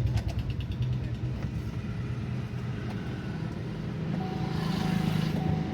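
Chevrolet Cruze engine running steadily, with a slight rise in level about four and a half seconds in.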